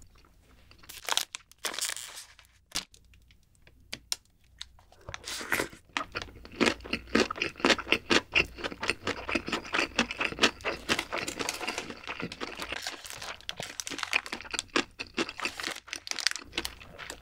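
Plastic wrapper of a convenience-store gimbap roll crinkling and tearing as it is unwrapped. A few scattered rustles at first, then dense, crackly crinkling from about five seconds in until near the end.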